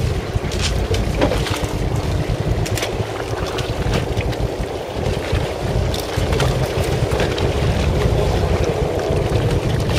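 Fishing boat's engine running steadily with a low rumble and a constant hum, with wind buffeting the microphone.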